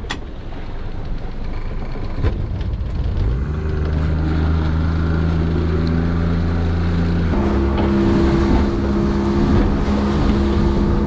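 Evinrude 90 outboard motor driving the boat: its pitch rises about three seconds in as the throttle opens, then holds steady. About seven seconds in the note switches abruptly to a higher, steady running note as the boat runs at speed.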